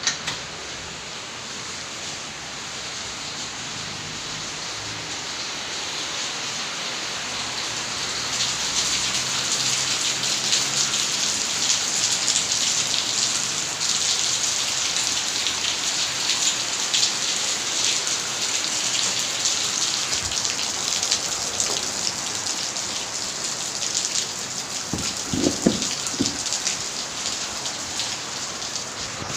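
Steady rain falling, growing heavier over the first several seconds and then holding. A few short knocks sound close together near the end.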